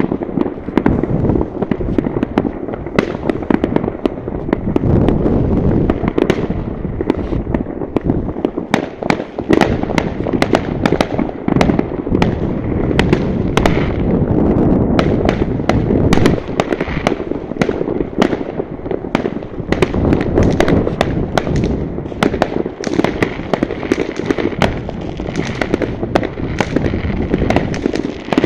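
Fireworks going off in many places at once: a constant crackle of many sharp bangs and pops over a low, rumbling background of distant explosions.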